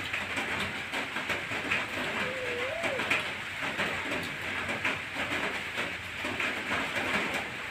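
Close-up eating noises: a dense run of small crackles and clicks as food is chewed and picked apart by hand. A brief wavering tone comes about two and a half seconds in.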